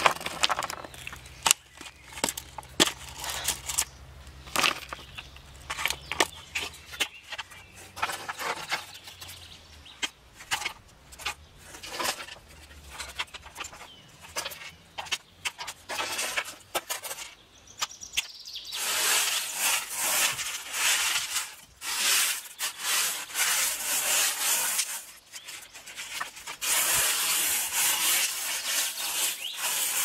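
Pebbles and small stones clicking against each other and on a hard plastic tray as they are set down by hand. From a little past halfway, hands sweep and spread the gravel across the tray in repeated scraping strokes about a second long.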